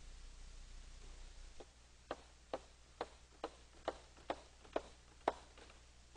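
Chalk striking a blackboard as short vertical lines are drawn one after another: a steady series of about nine sharp taps, roughly two a second, starting about a second and a half in.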